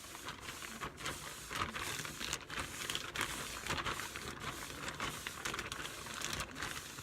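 A plastic bag being rubbed roughly over short hair, crinkling in a continuous run of rapid crackles.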